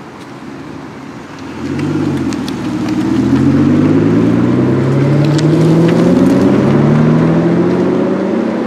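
Aston Martin V12 Vantage Roadster's V12 engine accelerating hard away, loud from about a second and a half in, its pitch climbing as it pulls up through the gears.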